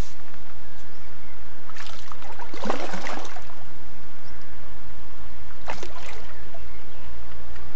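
A carp swirling and splashing at the water's surface close to the bank. There is one longer splash about two to three seconds in and a shorter one about six seconds in.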